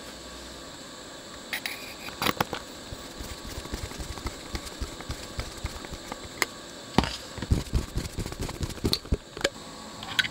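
A screwdriver fastening a chip into its small metal heatsink, with scattered light metal clicks and taps that come thickest about two thirds of the way in.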